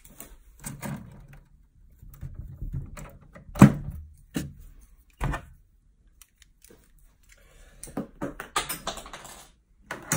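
Green plastic retaining clips being pulled off a 3D printer's frame and handled: a series of sharp plastic clicks and knocks, the loudest about three and a half seconds in, with a cluster of clattering and rustling near the end.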